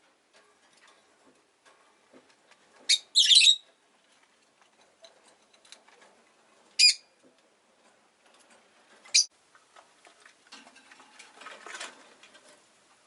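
Rosy-faced lovebird giving sharp, high chirps: a quick pair about three seconds in, then single chirps near seven and nine seconds. Faint light clicks and rustling lie between the calls.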